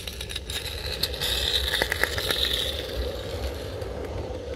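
A 16 mm scale live-steam garden-railway locomotive and its coaches running past: a hiss of steam with irregular clicking and rattling of the small wheels on the track, busiest in the first half.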